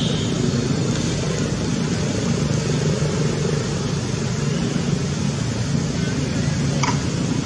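Steady outdoor background noise with a low rumble that holds an even level, with one short faint sound about seven seconds in.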